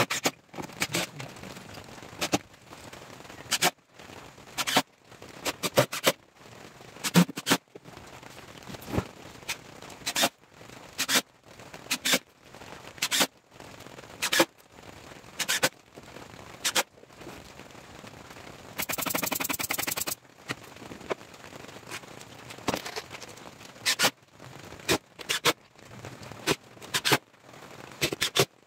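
Cordless impact driver driving screws into a plywood speaker box: many short bursts of rapid hammering, with one longer burst a little over a second long about nineteen seconds in.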